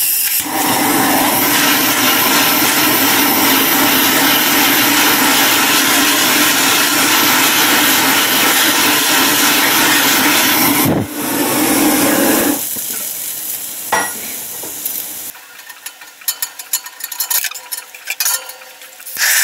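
Handheld gas torch burning with a steady hiss as its flame toasts oak staves. The hiss dips briefly about eleven seconds in and stops a second or so later, leaving scattered light clicks.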